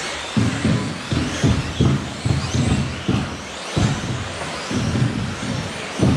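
Electric 1/10 scale 2WD off-road RC buggies racing: motor whine rising and falling, over repeated irregular low thumps.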